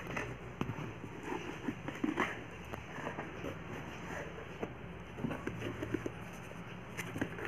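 A knife scraping and slicing along the packing tape on a cardboard box, with irregular short scratches and taps.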